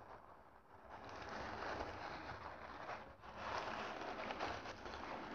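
Shredded paper packing rustling and crackling as a hand digs through it in a box, in two spells with a brief lull about three seconds in.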